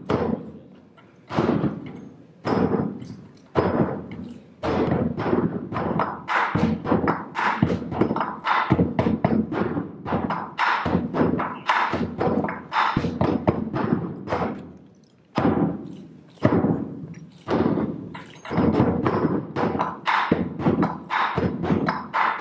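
Two large barrel drums beaten with wooden sticks, playing fast rhythmic phrases of strokes with short pauses between them.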